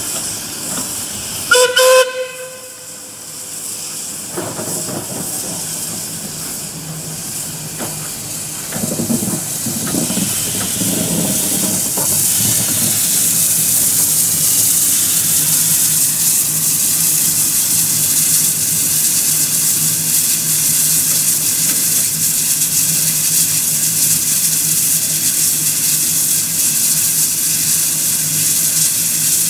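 Caledonian Railway 0-4-4 tank steam locomotive No. 419 (55189): a short, loud whistle blast about two seconds in, a few soft exhaust beats as it works, then from about twelve seconds a steady, loud hiss of escaping steam.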